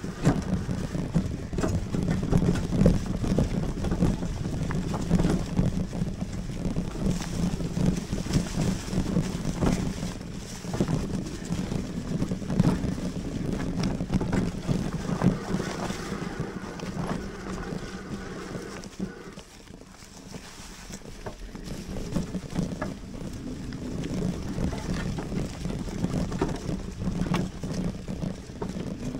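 Lectric Xpeak fat-tyre electric bike being ridden along a trail: tyre noise and rattling over the rough ground, with wind buffeting the microphone. The noise eases for a couple of seconds about two-thirds through, then builds again.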